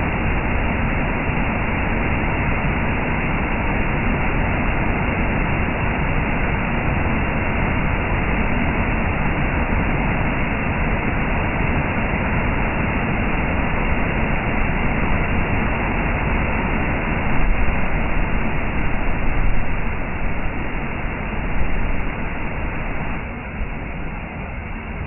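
Waterfall rushing in a steady, loud roar of falling water, swelling a little between about 17 and 22 seconds in and easing slightly near the end.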